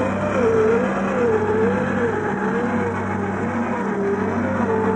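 Whine of an RC crawler's brushed electric motor and geared drivetrain, its pitch rising and falling about twice a second as the tyres spin on ice.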